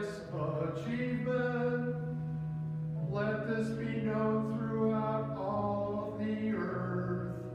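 Slow sung liturgical music, most likely the responsorial psalm: a voice holding long notes that change every second or two, over sustained accompaniment.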